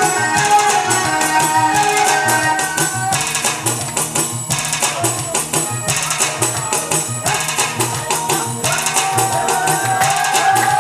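Instrumental break of Gulf samra folk music: a steady, busy rhythm of hand drums and tambourine-like jingles under a sustained melody line, which thins out in the middle and comes back near the end.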